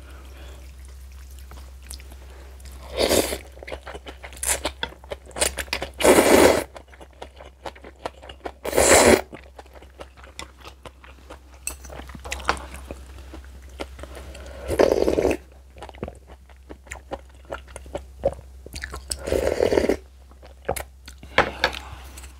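Close-miked eating of spicy kimchi and noodles: crunching and chewing, with many small clicks and about five loud half-second bursts of noise spaced a few seconds apart.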